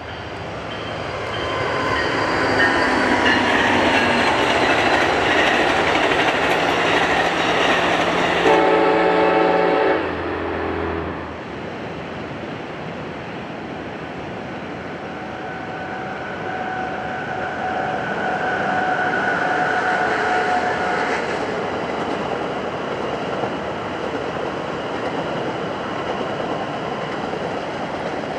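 Amtrak passenger train running by with a loud rumble, and a short blast of the locomotive's horn about eight seconds in. It cuts off suddenly and gives way to a quieter, more distant train rumble, with a held tone in the middle.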